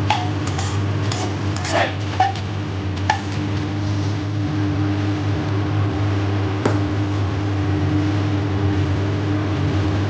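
A spatula scrapes and stirs rice in a nonstick wok, with several quick scrapes in the first three seconds and a single knock about two-thirds of the way through. A steady low hum runs underneath throughout.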